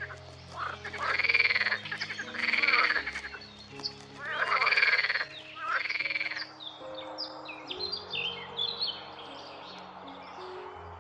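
A run of loud, pulsed frog croaks, each under a second long, about five in all. About six and a half seconds in they give way to quick high chirping bird song.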